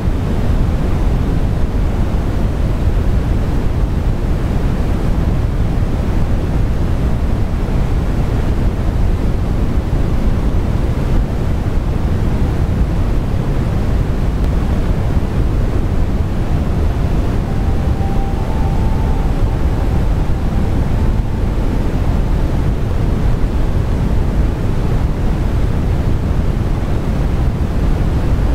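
Steady, loud rushing noise, heaviest in the low range, with no distinct events.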